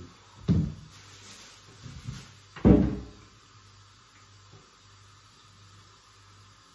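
Two heavy thumps at a kitchen counter, about two seconds apart, the second the louder; then only faint handling noise.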